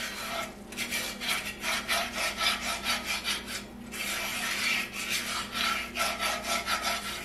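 Coil whisk scraping through a thick flour-and-oil roux against the bottom of a cast-iron skillet, rasping strokes about three a second with a brief pause a little before the middle. The roux is being stirred steadily as it browns toward a dark roux.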